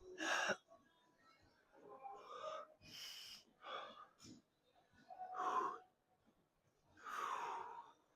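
A man breathing hard and wheezing, with about six loud, separate gasping breaths, winded enough from exercise to feel lightheaded.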